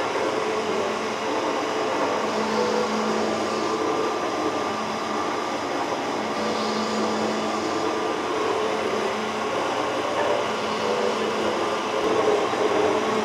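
Metal shaper running steadily, its bull gear and rocker arm turning inside the column as the ram strokes back and forth.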